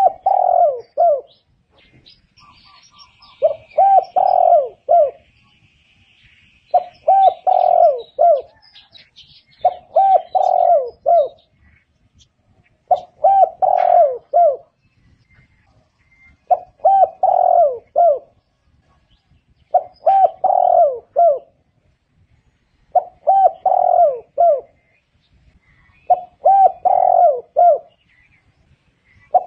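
Spotted dove cooing: a phrase of four or five quick coos, repeated about every three seconds. A small bird chirps faintly in the first few seconds.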